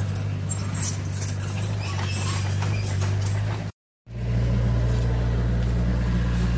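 Remote-control toy excavators working in sand: a steady low engine drone with scattered light clicks. It cuts out for a moment about halfway through, then resumes.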